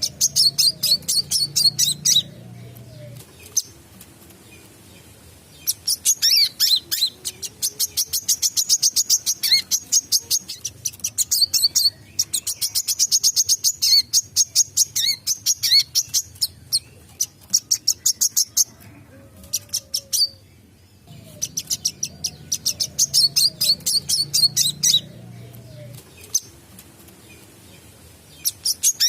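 A brown-throated sunbird (wiceh) singing a rapid, high, sharp chattering song. The song comes in bouts of several seconds, each a fast string of many notes a second, with short pauses between bouts.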